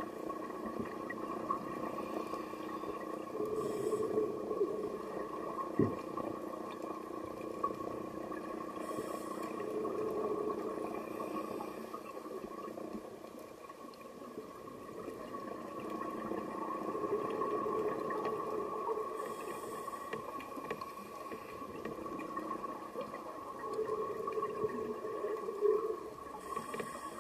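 Scuba diver breathing through a regulator, heard underwater through a camera housing. A brief hiss on each inhale and a longer bubbling rumble on each exhale repeat every five to seven seconds over a steady hum.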